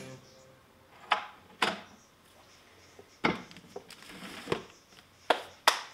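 Plastic containers and a plastic basket being set down and slid onto wooden kitchen cabinet shelves: a series of sharp knocks and clatters, several coming in quick pairs.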